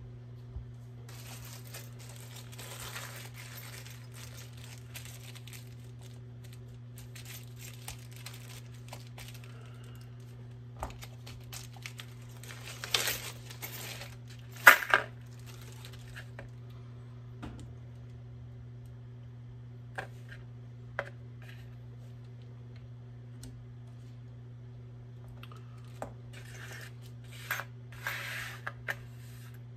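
Small pistol parts being handled and sorted by hand: scattered clicks and taps with stretches of rustling, a cluster of louder clicks about halfway through and again near the end. A steady low hum runs underneath.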